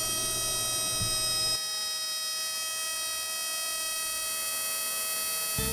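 SnowJoe iONAir cordless air compressor running as it charges its tank from empty: a steady whining hum of several steady tones, its lower rumble dropping away about a second and a half in.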